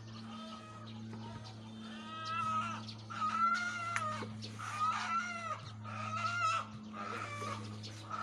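Chickens squawking loudly in alarm, one call about every second from about two seconds in, over a steady low hum. The commotion is put down to a wild cat nearby.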